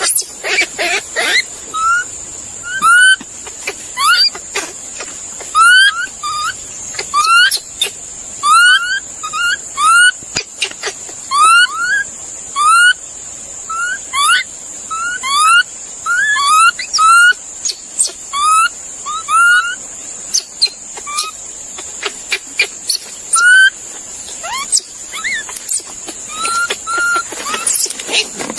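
An animal making many short rising squeaks, irregularly spaced and at times in quick runs, over a steady high-pitched hiss.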